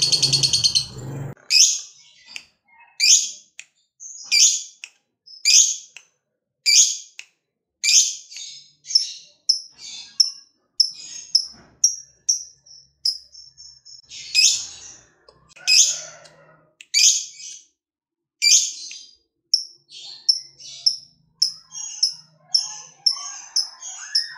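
Caged lovebird calling. A loud, rapid high chatter cuts off about a second in. Sharp, high-pitched single chirps follow about once every second or so, with softer chips between them. The chirps quicken near the end and run into another rapid chattering trill.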